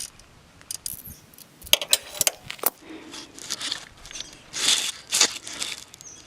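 Metal hand tools clinking and rattling in irregular sharp knocks with short scrapes: a socket wrench and long socket extension being handled against metal.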